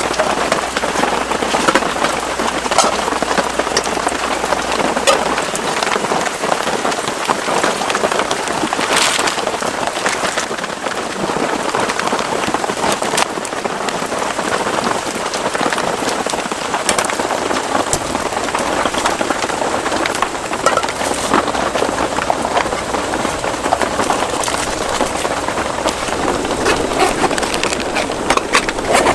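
Steady rain falling, with many small drop ticks close by.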